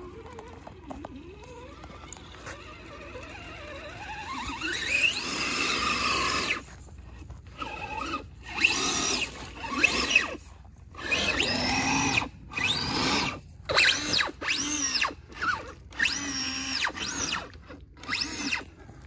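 Electric motor and gearbox of an RC Land Rover Defender crawler whining: a whine rising in pitch as the throttle opens, then a string of short throttle bursts as the truck churns in deep mud, bogged down.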